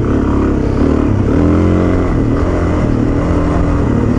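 Suzuki DR-Z400's single-cylinder four-stroke engine running under load on a rough dirt trail, its note dipping and climbing again several times as the throttle is worked.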